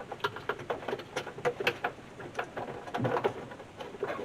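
Irregular small clicks, ticks and rustling from a wiring harness and its connector being pushed by hand through a firewall grommet, with a slightly heavier knock about three seconds in.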